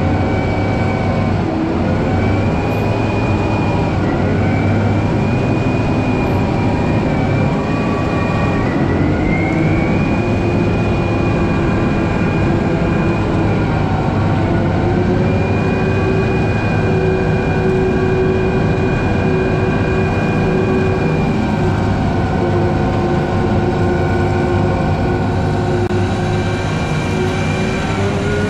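John Deere 9520RX tracked tractor's diesel engine running steadily while pulling a grain cart. Its pitch dips and rises slightly a few times and climbs near the end.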